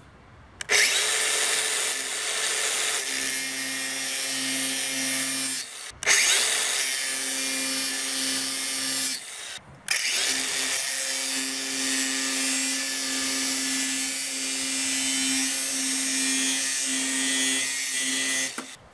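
DeWalt DCG414 cordless angle grinder running loud and steady in three long runs, with short breaks about six and nine and a half seconds in.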